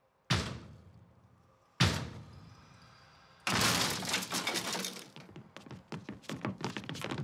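Dramatic sound effects: two heavy booming impacts about a second and a half apart, each dying away slowly, then a loud crash like breaking glass, which gives way to a fast, uneven clatter of short clicks.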